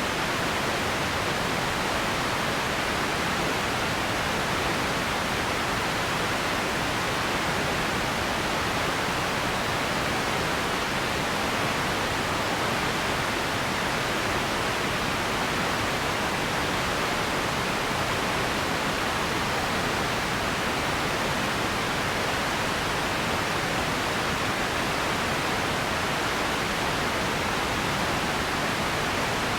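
Radio static: a steady, even hiss with no tones or clicks, unchanging throughout.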